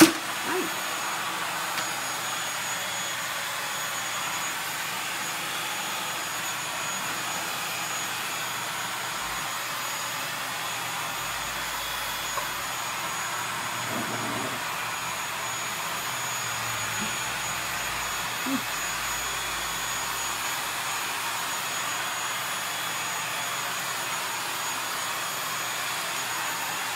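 Corded stick vacuum cleaner running steadily: a constant even hiss with a faint high whine, and a sharp knock right at the start.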